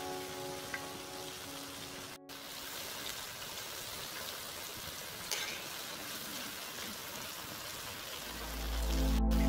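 Jalebi frying in hot oil, a steady sizzle. Background music fades out over the first few seconds and comes back louder near the end.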